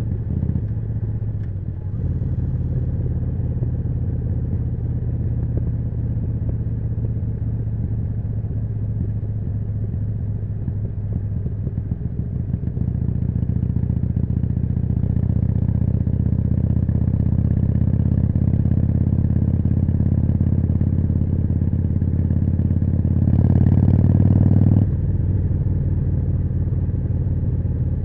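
Harley-Davidson Forty-Eight's air-cooled V-twin running through a Jekill & Hyde exhaust while riding. Its pitch climbs slowly through the second half as the bike accelerates, gets louder for a second or two near the end, then eases off.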